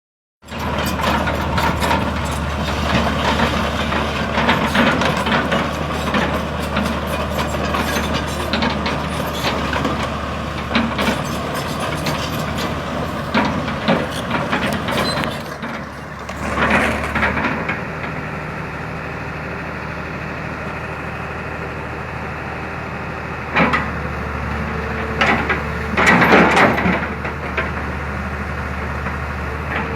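Excavator's diesel engine running steadily under test after a service, with frequent knocks and clatter through the first half. It then settles into steadier running, with a few short louder bursts near the end.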